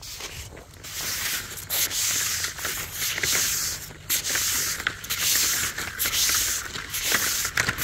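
Flat plastic drip tape sliding through a hand and rubbing against the microphone: a series of loud scraping rubs, roughly one a second.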